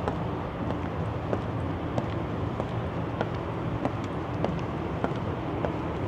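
Steady hum of expressway traffic running beneath the bridge, with even footsteps on the bridge deck a little under two a second.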